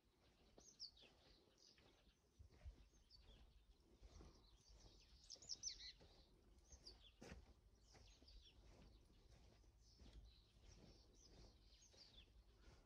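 Faint birds chirping, with many short high calls scattered through, over a low outdoor rumble with a few soft thuds.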